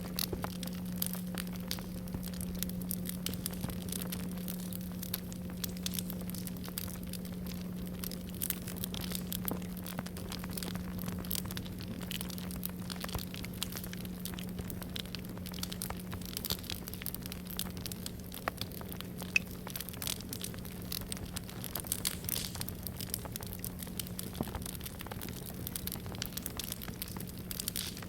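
A singing bowl's low ringing tone holds steadily and slowly dies away, its fainter higher overtone fading out after about eight seconds. Under it a campfire crackles and pops continuously.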